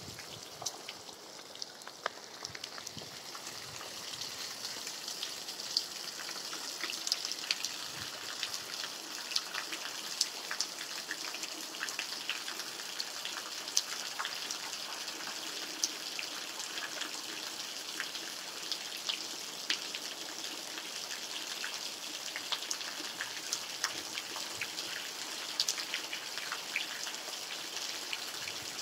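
Steady rain falling, a soft hiss with many separate drops ticking sharply now and then.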